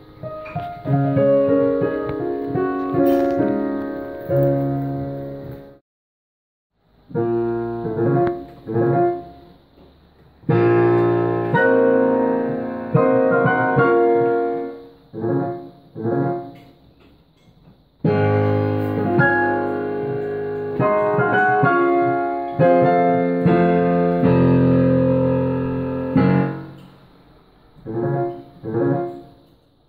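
Background piano music, played in phrases with short pauses; it breaks off completely for about a second around six seconds in.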